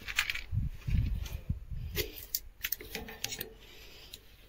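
Battery charger clamps being unclipped from the truck's battery terminals: a string of scattered sharp metal clicks and rattles with a few dull knocks in the first second or two.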